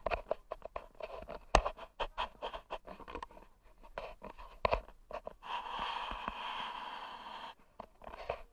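Close handling noise from a body-worn or hand-held camera: irregular scrapes, rubs and sharp clicks as the wearer moves. About two-thirds of the way through comes a steady hiss lasting about two seconds.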